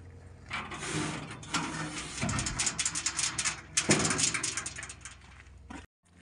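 Heavy log scraping and sliding across a steel trailer bed, with a loud thud about four seconds in as it settles into place. A steady low hum runs underneath.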